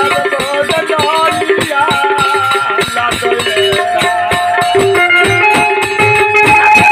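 Folk ensemble music: a harmonium melody over a fast beat of dholak drum and jingling hand cymbals.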